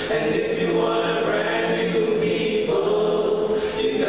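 Men's vocal group singing gospel in close harmony through microphones, holding sustained chords that shift a few times.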